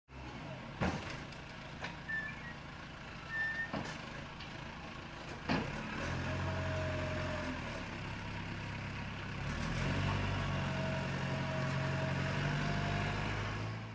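Industrial harbour sound effects: several sharp knocks and two short high beeps, then from about six seconds a low, steady droning hum with a higher tone over it, louder for the last few seconds.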